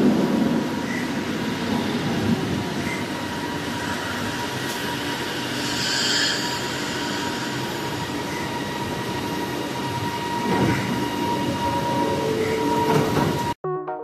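Kelana Jaya Line KLAV automated light-metro train running into the station and slowing to a stop alongside the platform. The rail noise is loudest as it enters, with a steady high whine underneath and a brief high wheel squeal about halfway through. Near the end the sound cuts abruptly to electronic music.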